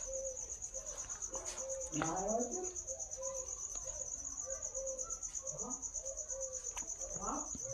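Quiet background: a steady, high-pitched trill pulsing rapidly, with a softer low tone pulsing about twice a second underneath. A faint distant voice comes in briefly about two seconds in and again near the end.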